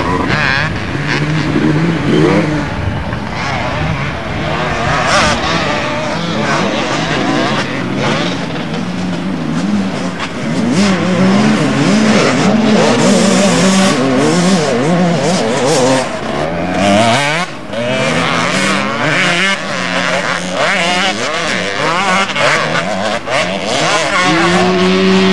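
Motocross motorcycle engine revving hard as the bike is ridden over the dirt track, its pitch rising and falling again and again through throttle and gear changes.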